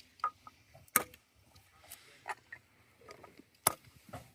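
An axe striking and splitting firewood: sharp, separate knocks, the loudest about a second in and another strong one near the end, with a few lighter taps between.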